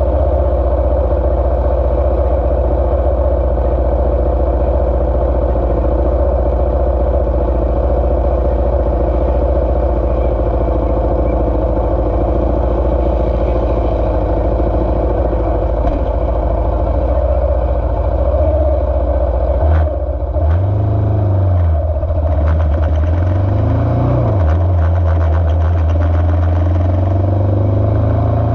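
Single-cylinder racing motorcycle engine idling steadily, then revved up and down twice about twenty seconds in, with the revs creeping up again near the end.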